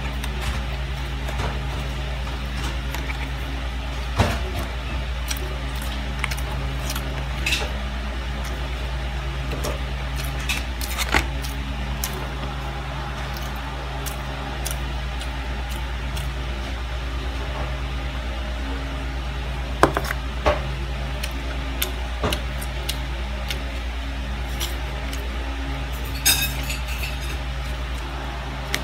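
A white plastic fork cuts and taps against a paperboard food tray, giving a handful of sharp clicks and light taps spread over a steady low electrical hum.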